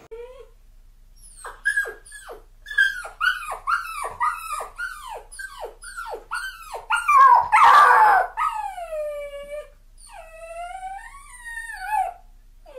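A dog yelping: a quick run of short cries, each falling in pitch, about two a second. Then a louder, rougher cry about seven seconds in, followed by longer drawn-out cries that rise and fall in pitch.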